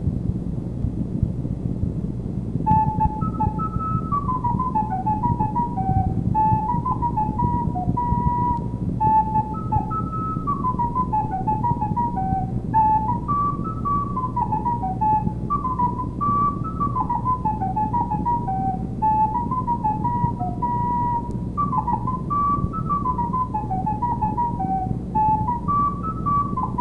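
Recorder playing a quick melody of short notes that starts about three seconds in and runs on in repeating phrases, with a steady low hum underneath.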